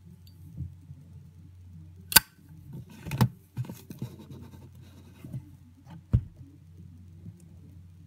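A Zippo windproof lighter being handled: the steel insert goes back into the polished chrome case with light metal scraping, and there are sharp metallic clicks about two and three seconds in as it seats and the lid shuts. A softer run of handling noise follows, then one more sharp knock near six seconds as the lighter is settled into its gift box.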